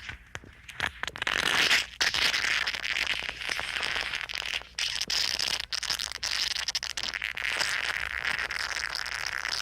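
Gross, wet squirting sound effect: a continuous hissing spray broken by many small clicks. It drops away for a moment near the start, then runs on steadily.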